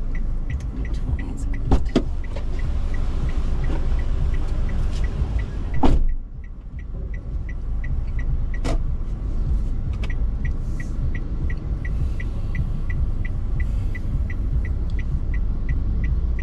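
Car's indicator ticking evenly, about three ticks a second, over the low rumble of the engine idling. A car door opens with a knock about two seconds in and is shut with a loud thud about six seconds in, as the passenger gets out.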